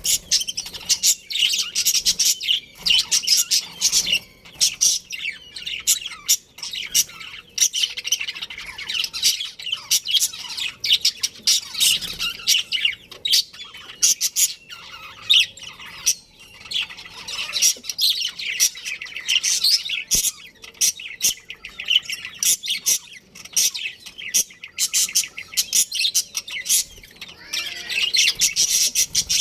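Budgerigars chattering: a dense, continuous stream of quick high chirps and squawks from several birds, with no pauses.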